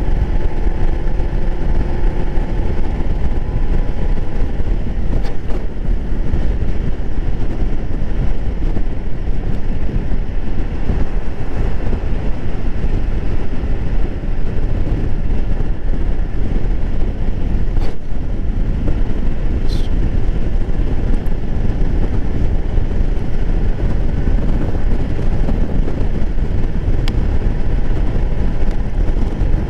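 Wind buffeting the microphone at road speed on a Honda Navi, with the small air-cooled single-cylinder engine and belt drive droning steadily underneath.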